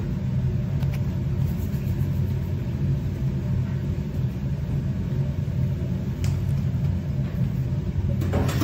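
Steady low mechanical rumble with a droning hum and a faint click or two.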